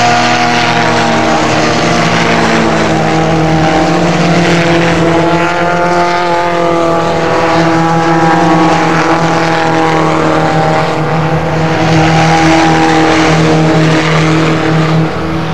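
Engines of Ginetta G20 race cars running hard, several at once, a loud steady mechanical note whose pitch drifts slowly up and down.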